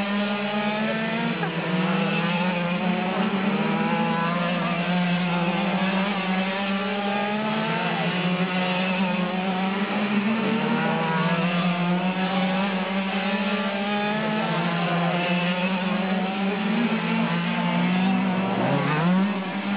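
Quarter-scale RC race cars' small two-stroke gasoline engines buzzing as they lap, the pitch rising and falling with the throttle through the turns. Near the end one car sweeps past with a quick swing in pitch.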